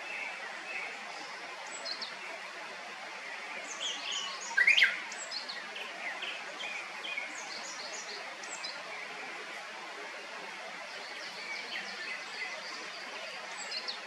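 Woodland birds giving scattered short chirps and calls over a steady hiss of background noise, with one loud rising call about five seconds in.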